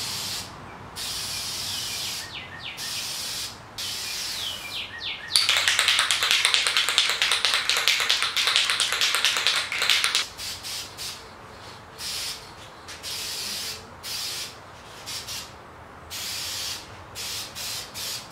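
Aerosol spray can of automotive paint hissing in many short on-off passes of about a second each, laying a coat of paint on a metal frame. One longer, louder spray of about five seconds comes in the middle.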